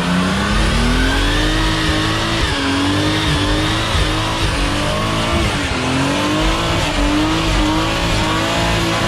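A 500 hp Nissan Z's engine under way. It climbs in pitch over the first couple of seconds, then holds with small rises and falls, dips briefly past the middle and picks up again.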